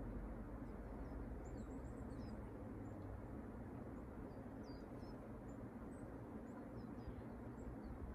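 Outdoor background: a steady low rumble with faint short high chirps scattered through it.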